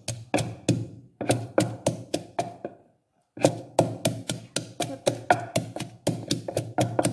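Wooden pestle pounding chillies, shallots and garlic in a deep wooden mortar: quick, even wooden knocks, about four or five a second, with a brief pause about three seconds in before the pounding resumes.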